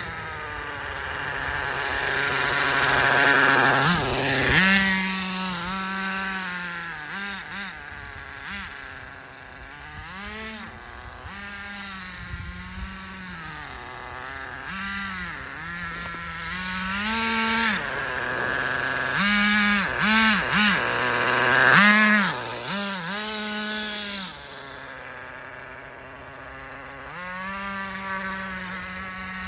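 Small glow-fuel nitro engine of a 1/10-scale RC truck idling, then revving up and down over and over as the truck is driven. It is loudest twice, about four seconds in and again around twenty seconds in, and settles back to a steady idle near the end.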